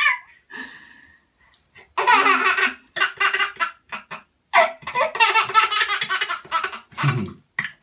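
Baby belly-laughing in quick pulsed bursts: a couple of short laughs, then a longer run of laughter in the second half.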